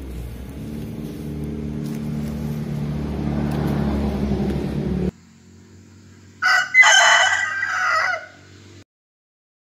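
A steady low engine hum slowly grows louder, then cuts off suddenly about five seconds in. Soon after, a rooster crows once, loudly, for about two seconds.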